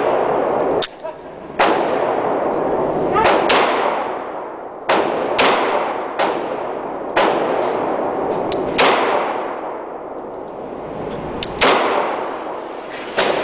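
SIG Sauer P226 9mm pistol fired in single shots, about nine at uneven gaps of one to three seconds, each shot ringing on in the concrete indoor range.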